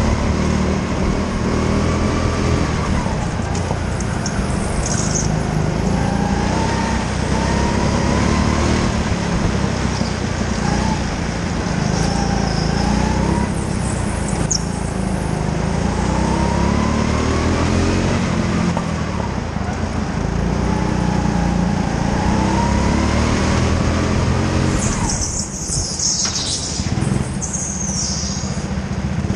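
Go-kart engine heard on board at racing pace, its note climbing again and again as it revs up along the straights and dropping back for the corners. Near the end the engine sound dips and the tyres squeal in a burst as the kart slides sideways.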